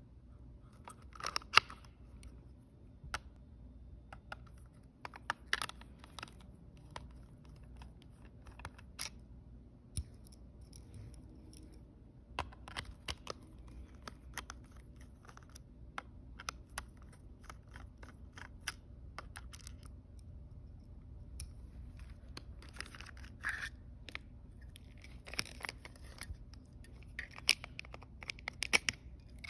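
Scattered clicks, taps and scrapes of a plastic mobility-scooter control console being handled and taken apart, with a screwdriver working at it. The sharpest click comes about a second and a half in, and the clicks come thicker near the end.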